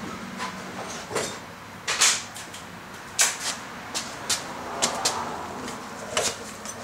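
Handling noise: irregular clicks and light knocks, about ten of them, the sharpest about two and three seconds in, as a cordless work light and tools are picked up and handled.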